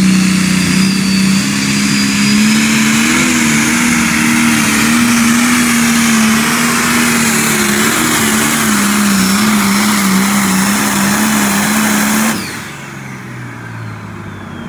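John Deere pulling tractor's engine at full throttle, dragging the weight-transfer sled. It holds a high, steady pitch that wavers slightly. About twelve seconds in, the throttle is cut and the engine falls suddenly to a low idle as the pull ends.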